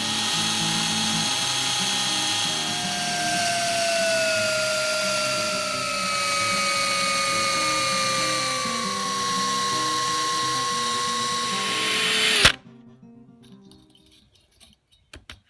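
Electric drill boring through a metal plate: a steady whine that slowly sinks in pitch, cutting off suddenly about three-quarters of the way through. A few light clicks follow near the end.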